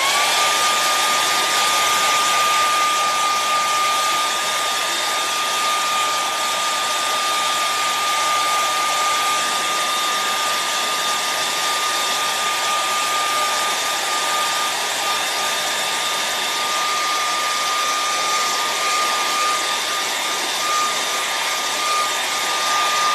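Handheld hair dryer running steadily, a rush of air with a high whine held at one pitch, drying wet acrylic paint on a canvas.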